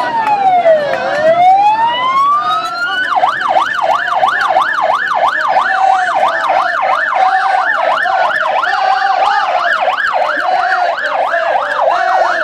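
Sirens: two slow wails cross, one falling and one rising in pitch. About three seconds in, a fast yelping warble takes over, about three cycles a second.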